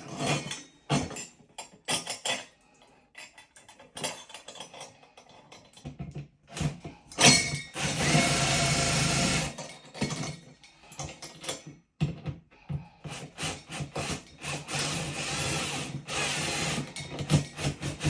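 Power drill running for about two seconds near the middle, between scattered clicks and knocks of tools and hardware being handled, as a grab bar is fastened to a wall stud; more quick knocks follow over a steady low hum.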